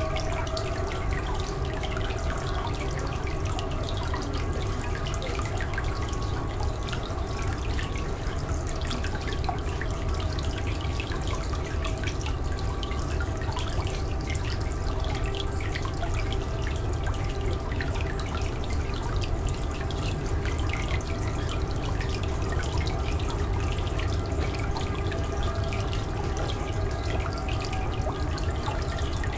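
Steady running water with many small drip-like clicks, over a bed of held drone tones that never change.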